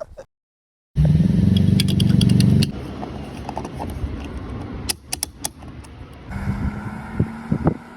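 A car engine starts, running loud for a second or two about a second in, then drops to a quieter running with scattered clicks and rattles.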